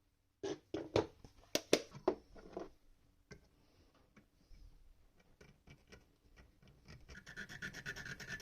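Small metal workpieces and hand tools being handled on the bench: a quick run of sharp clicks and knocks in the first few seconds, then faint scattered ticks, and near the end a faint, fast scratching.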